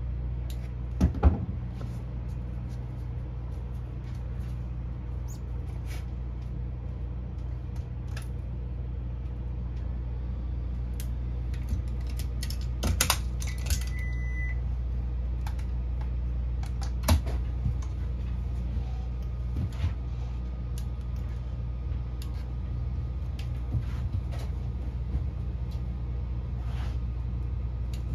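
Fusion splicing work over a steady low hum: scattered clicks and knocks from handling the splicer, cleaver and fibers, and one short high beep about halfway through, of the kind a fusion splicer or its sleeve heater gives at the end of a cycle.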